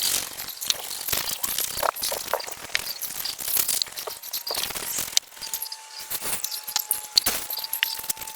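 Hand work on a plastic headlight lens: irregular scratchy rubbing strokes and light clicks. A faint steady tone comes in about five seconds in.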